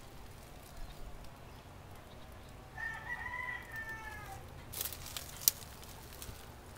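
A single drawn-out bird call of over a second, about three seconds in, rising slightly and then falling. About five seconds in come two sharp clicks, the second the loudest sound.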